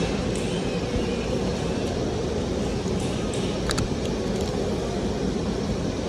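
Steady low mechanical din of a dealership service shop. A few faint small clicks sound a little past the middle as the plastic key fob and its key ring are handled.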